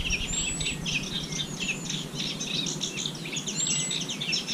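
Songbirds singing together in a dense chorus of quick chirps and warbling phrases, with a thin high whistle near the start and again near the end.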